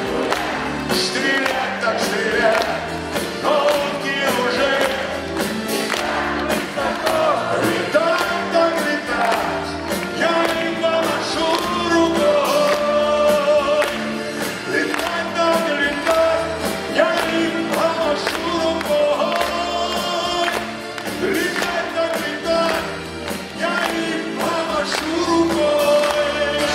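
Live song: a man singing over a strummed twelve-string acoustic guitar, with a steady drum beat.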